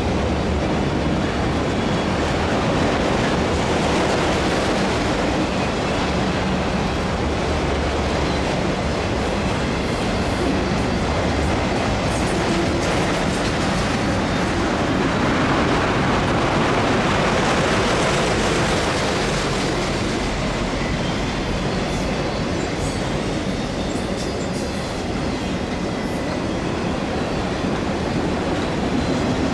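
Freight train of autorack cars rolling past, its steel wheels running steadily on the rails, with light ticks from the wheels over the rail joints from about halfway through.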